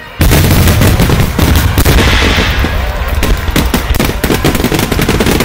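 Fireworks barrage: a dense, rapid-fire run of shell bursts and crackles that breaks in suddenly just after the start and keeps going loud.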